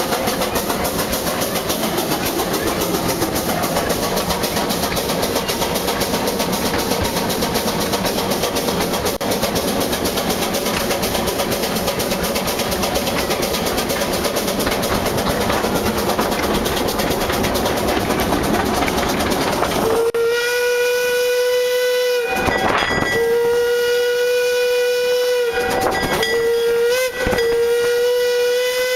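Two-foot-gauge train running along the track with a steady rattle and rumble. About twenty seconds in, the steam whistle of 1904 Vulcan locomotive #10 blows four steady-pitched blasts, long, long, short, long: the grade-crossing signal.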